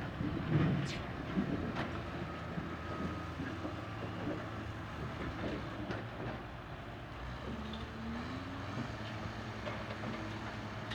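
Excavator's diesel engine running steadily under load, with a few sharp knocks and a brief rising whine about three-quarters of the way through.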